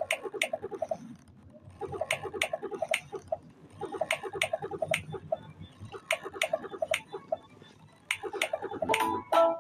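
Timer sound effect: groups of quick, clucking pitched pulses with sharp clicks, repeating about every two seconds.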